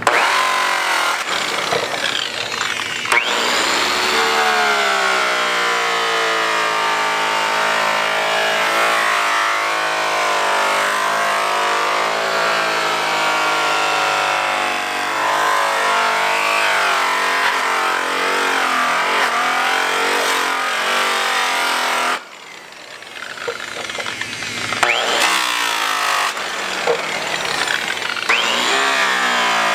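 Makita angle grinder with a buff loaded with cutting compound, polishing the aluminium outer lip of a truck drive wheel. Its motor spins up at the start and runs with the pitch wavering as the buff is pressed into the metal, drops away suddenly about two-thirds through, then starts up again a few seconds later.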